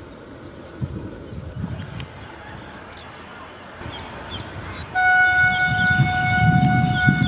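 Vande Bharat Express trainset sounding a steady single-pitched horn for about two seconds, starting about five seconds in, over the rumble of the train. Before the horn there is only a low background rumble.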